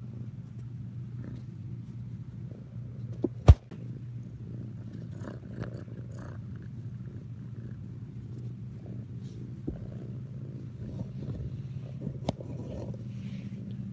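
Kitten purring close to the microphone, a steady low rumble. A single sharp knock about three and a half seconds in, with a couple of lighter clicks.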